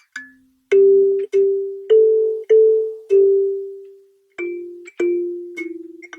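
Gecko K17MBR 17-key kalimba plucked in a slow melody of single notes, each one ringing and fading away. One note about three seconds in is left to ring longer before a short pause, and then the melody goes on.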